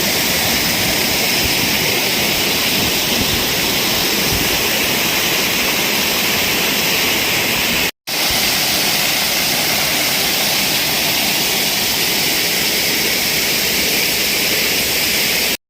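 Waterfall: a steady rush of falling water, broken by a brief cut to silence about halfway through.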